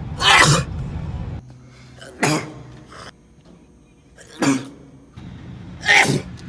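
Four sharp sneezes in a row, each short and explosive, coming about every two seconds.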